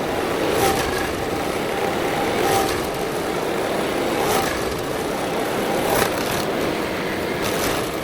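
Stump grinder's engine running under load as its cutting wheel chews into a stump, with a brief burst of chipping about every two seconds.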